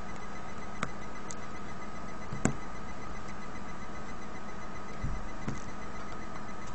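A few small clicks and taps from handling the parts of a Nexus One smartphone during reassembly, the loudest about two and a half seconds in and a dull thud near the end, over a steady electrical hum.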